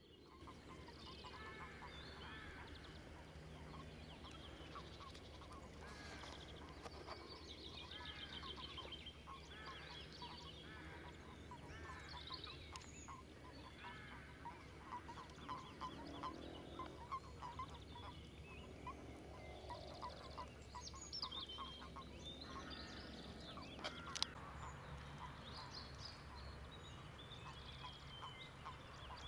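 Frogs croaking in a spring pond chorus: many short, quiet croaks repeating over one another, with higher trilling calls above them. A single sharp click sounds late on.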